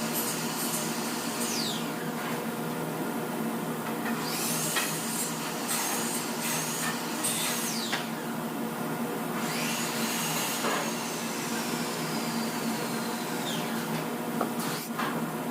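Power tools whirring over a steady machine hum, with high whines rising and falling several times and a few sharp clicks.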